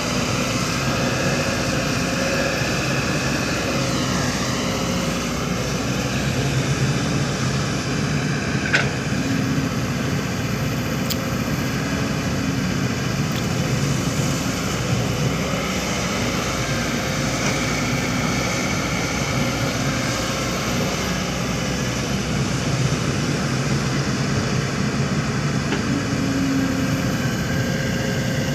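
Diesel engines of heavy construction machinery, an excavator and dump trucks, running steadily, with a higher whine that dips and rises in pitch now and then. There is one sharp click about nine seconds in.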